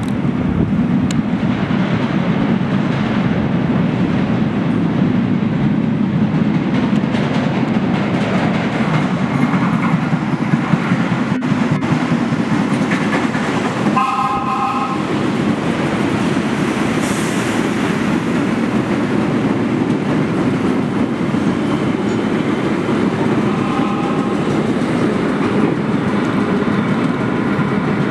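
Vintage BMT AB Standard subway train rumbling through the station with steady wheel clatter, and a short horn blast about halfway through.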